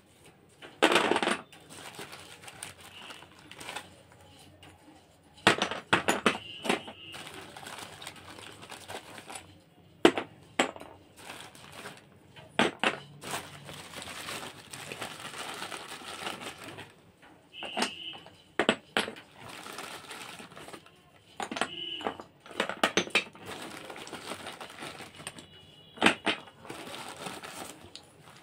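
Small clay pieces clinking and knocking as they are set down on a steel plate, some clinks ringing briefly, with a plastic bag crinkling in between.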